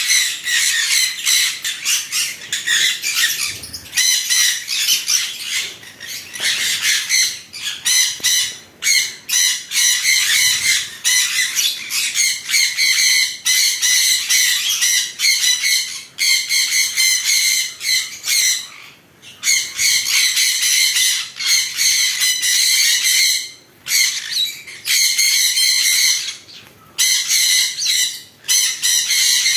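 Many pet birds chattering and squawking together in a dense, high-pitched din, with a few brief lulls.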